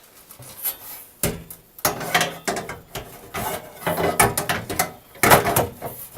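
The dress panel of a Simplex 4010 fire alarm control panel being fitted back into place: a run of irregular clicks, rattles and scrapes starting about a second in, with the loudest clatter about five seconds in.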